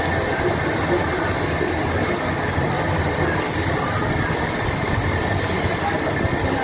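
Steady restaurant background noise: an even low rumble and hiss, like ventilation running over the grill tables, with no distinct events.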